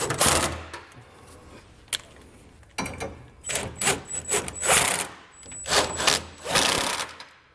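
Cordless impact wrench with a 3/4-inch socket running bolts down in several short bursts, with pauses between, as it snugs the fifth-wheel base rail bolts to the frame brackets.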